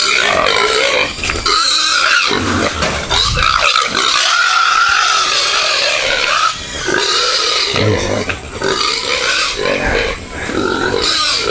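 Domestic pig squealing loudly in long, high screams with only brief breaks: the distress squeal of a pig being grabbed and forced along by hand.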